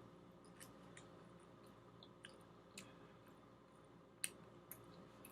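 Faint close-up chewing of a chicken biscuit: scattered wet mouth clicks and smacks, with one sharper click about four seconds in.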